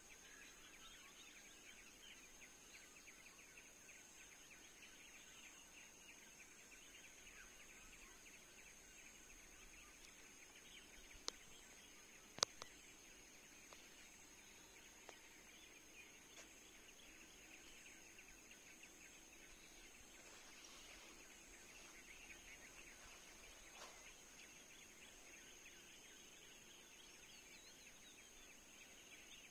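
Near silence: faint outdoor ambience with a steady high hiss and soft rapid chirring, broken by two sharp clicks a little over a second apart about halfway through.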